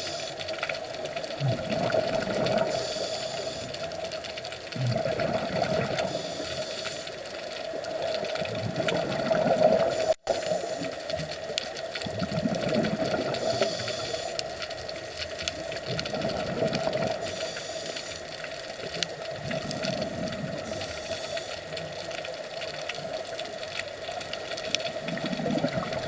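Underwater sound picked up by a submerged camera: a steady, slightly wavering mechanical hum over muffled water noise, with low whooshing swells every three to four seconds. The sound cuts out for an instant about ten seconds in.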